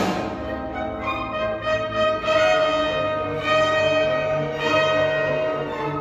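A youth orchestra playing classical music: a loud percussion crash right at the start, then the strings hold long sustained chords.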